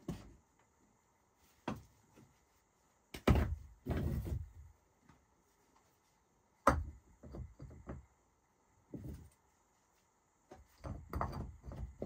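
Stones being set down and shifted on a stacked stone wall: a series of irregular knocks and thuds. The loudest come a little after three seconds and near seven seconds in, with a quicker cluster near the end.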